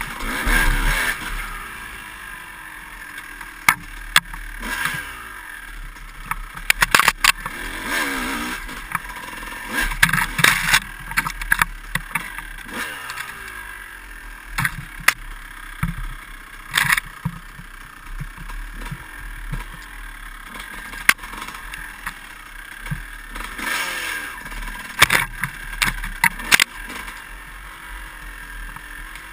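Dirt bike engine revving up and down as it is ridden over a rough trail, with frequent sharp knocks and rattles from bumps.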